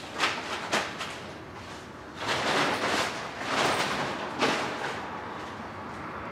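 Handling noises at a parked motorcycle: two sharp clicks close together, then a few rustling swishes and a sharp knock.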